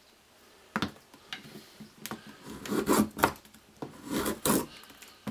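A freshly honed Stanley chisel paring shavings off a softwood stick: several short rough scraping cuts about two seconds in, and more near four seconds. A single sharp knock sounds just under a second in.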